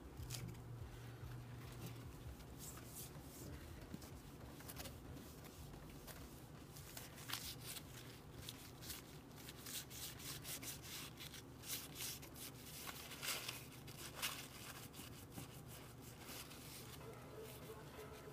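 Irregular rustling and light clicks of handling close to the microphone, busiest and loudest between about seven and fourteen seconds in.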